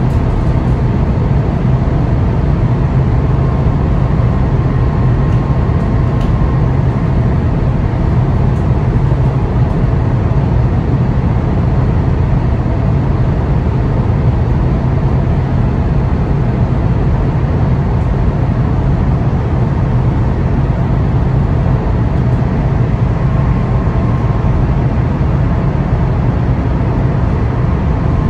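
Steady rumble of an ICNG electric multiple unit running along the line, heard from on board, with a faint whine coming and going twice.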